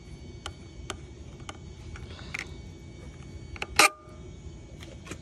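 Scattered light clicks and knocks from handling the air filter and its metal cover taken off a riding mower's engine, with one sharp clack about four seconds in that rings briefly.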